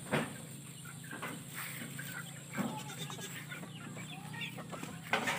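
Chickens clucking, scattered short calls, with a few brief louder sounds near the start, in the middle and near the end.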